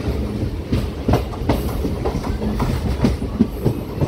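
MEMU electric passenger train running along the track: a steady rumble from the coaches with irregular clacks as the wheels pass over rail joints.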